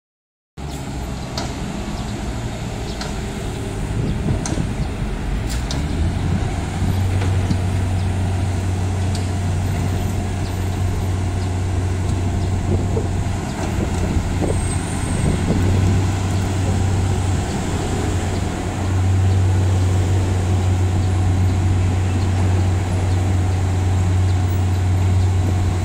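Wirtgen road milling machine's diesel engine running with a deep steady drone that strengthens about six seconds in, eases off in the middle and comes back. A few sharp knocks sound over it early on.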